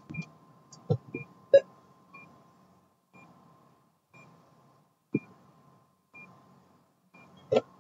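Short high electronic beeps repeating about once a second, over a faint steady tone, with a few louder knocks in between.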